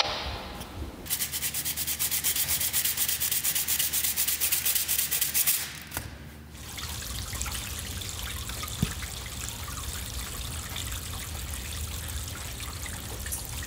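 Rapid, rhythmic sanding or abrading of a surface, many strokes a second, that stops about six seconds in and gives way to a softer steady hiss.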